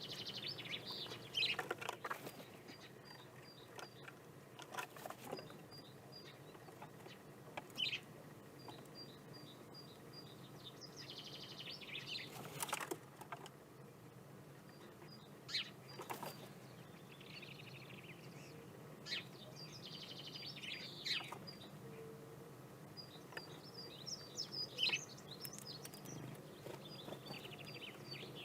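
Wild birds chirping in short runs of high, evenly spaced pips and chatter, with sharp clicks or knocks now and then.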